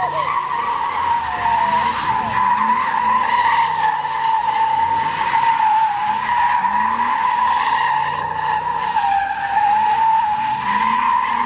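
Camaro's rear tyres squealing without a break as the car spins donuts, one steady high screech that wavers slightly in pitch. The engine revs up and down underneath it.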